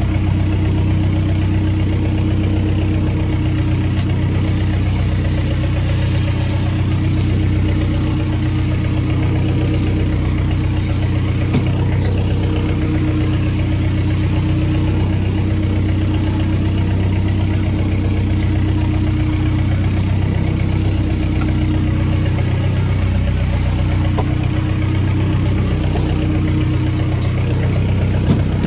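A boat's engine idling with a steady hum and no change in speed.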